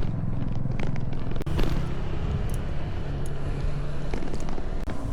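A motor vehicle's engine running steadily on the road, with road noise and a few light clicks.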